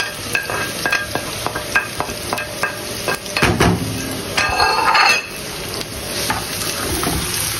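Chopped peppers, onion and garlic sizzling in oil in a frying pan while a utensil stirs them, tapping and scraping against the pan many times. About four and a half seconds in, a louder burst of noise lasts under a second, then a steady sizzle goes on.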